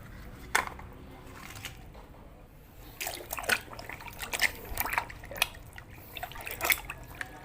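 Water splashing and dripping as a muddy plastic toy tank is scrubbed by hand in a basin of water: one small splash about half a second in, then a busy run of small splashes and drips from about three seconds in.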